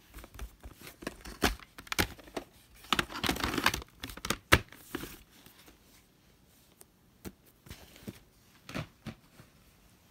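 A VHS cassette and its plastic clamshell case being handled: a series of sharp plastic clicks and rustles, with a denser crinkling stretch about three seconds in, then fainter, occasional taps.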